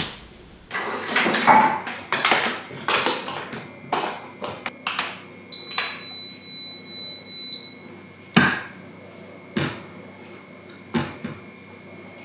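Short knocks and clicks of kitchen handling as bananas go into a blender jar and the blender base is touched, with one loud, steady, high electronic beep from a kitchen appliance lasting about two seconds around the middle.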